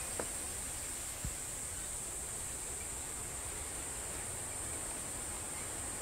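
A steady high-pitched insect drone over an even hiss, with two faint ticks about a second apart near the start.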